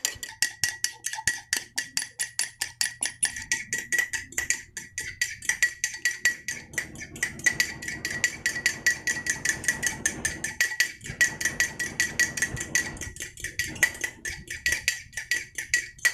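A metal fork whisking egg white in a ceramic mug, striking the sides in a rapid, steady clatter of several clinks a second, with the mug ringing.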